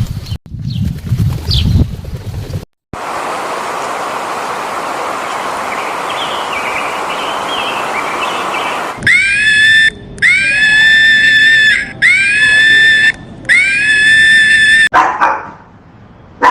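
A dog whining in four long, high cries; each rises briefly and then holds its pitch. They follow several seconds of a steady hiss.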